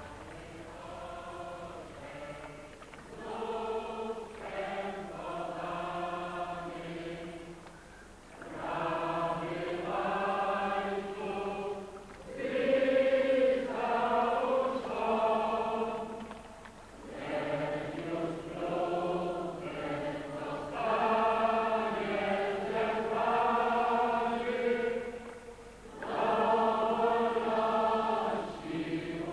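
Choir singing slow, held phrases, with short breaks between them every few seconds.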